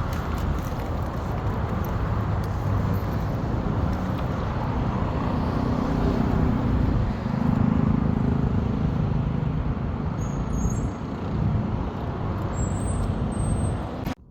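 Road traffic noise with a motor vehicle's engine passing close, its rumble swelling about six to nine seconds in.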